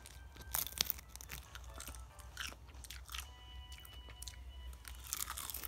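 Crisp roasted seaweed sheets (gim) crackling and crunching as they are handled and bitten, in sharp bursts that are loudest about half a second in and again near the end.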